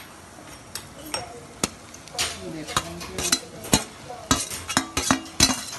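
A metal spoon clinks and scrapes against cookware as fried soya chunks are tipped into a pan of masala paste and stirred. The clicks come irregularly, thickest near the end, over a light sizzle from the hot oil.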